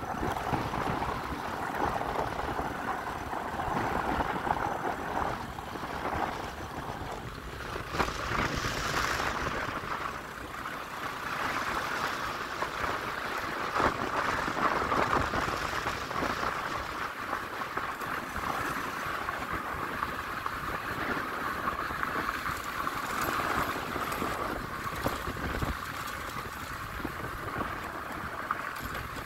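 Motorbike running steadily along a dirt track, its engine blended with an even rushing noise from the ride.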